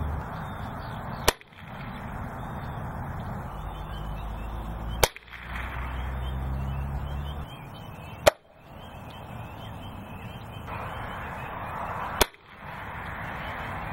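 Gamo Swarm Magnum 10X Gen 3i .177 break-barrel air rifle fired four times into a ballistic gel block, a sharp single crack every three to four seconds.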